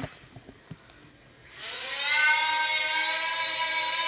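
Small quadcopter's electric motors and propellers spinning up. After a few light clicks, the whine rises in pitch for about half a second and then holds steady and loud as the drone lifts off.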